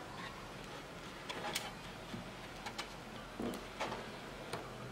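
Scattered small clicks and taps, about seven in all, from hands handling and pressing parts and wires, over a faint steady low hum.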